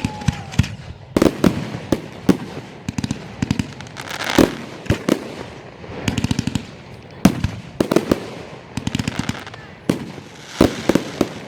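Fireworks going off: clusters of rapid crackling pops and sharp bangs, a burst every second or two.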